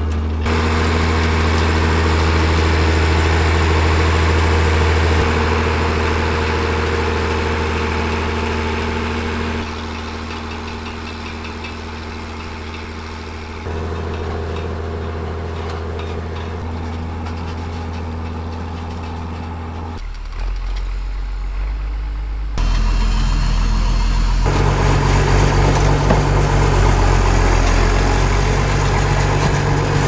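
Fiatagri 160-90 DT tractor's turbocharged 8.1-litre six-cylinder diesel engine working under load as it pulls a four-furrow plough through clay. Its steady note changes abruptly several times, is deepest about two-thirds of the way through, and is loudest over the last few seconds.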